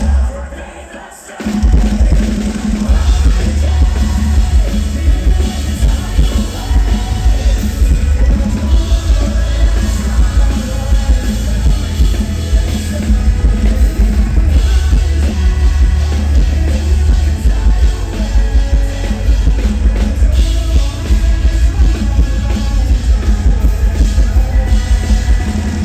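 Live metalcore band playing loud, heavy rock with fast, pounding drums. About a second in the band briefly drops out, then the full band comes back in.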